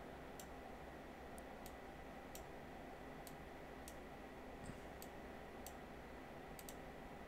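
Faint computer mouse clicks, about a dozen at irregular intervals, over a low steady room hiss.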